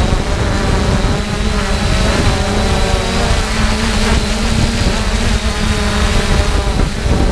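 3DR Solo quadcopter's four electric motors and propellers whining in flight, the pitch drifting up and down as it manoeuvres, over heavy wind rumble on the microphone.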